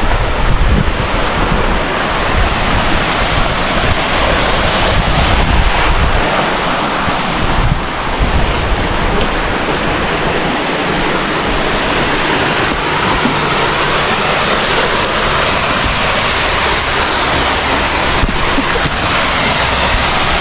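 Waterfall pouring: a loud, steady rush of falling water. Wind buffets the microphone in low rumbles during roughly the first eight seconds.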